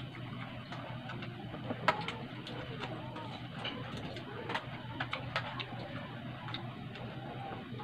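Spoons and forks clicking and scraping against ceramic bowls and plates while eating, in irregular light clinks, the sharpest about two seconds in. A steady low hum runs underneath.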